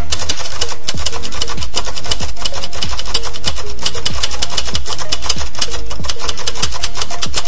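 A loud, harsh rasping noise made of many rapid clicks a second, with brief short notes now and then. It starts and stops abruptly.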